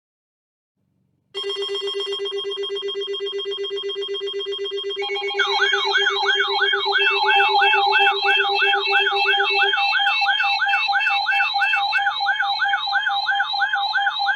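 Layered electronic alarm tones: a low, fast-pulsing buzzing tone starts about a second in, then a few seconds later a siren-like warble joins, sweeping up and down a little more than twice a second over steady higher beeps, and the sound gets louder.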